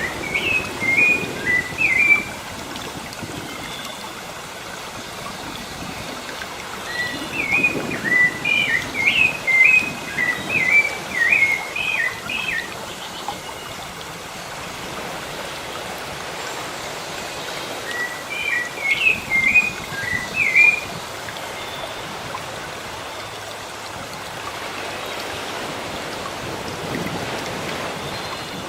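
Steady wash of sea surf with a songbird singing three phrases of quick, repeated chirping notes: one at the start, a longer one about seven seconds in, and a short one around eighteen seconds in.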